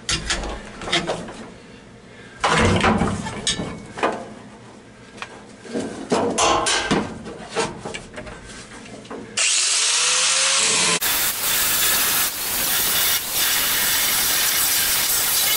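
Scattered knocks and clatter of the angle grinder being handled. About nine seconds in, the grinder spins up with a rising whine, and from about eleven seconds it cuts steadily through the rusted sheet-metal floor pan of a 1966 Ford F100 cab with a loud, even hiss.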